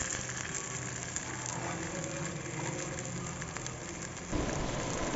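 Chickpea vegetable cutlets sizzling softly in a pan lightly greased with ghee: a steady frying hiss with a few small crackles, over a low hum that grows louder about four seconds in.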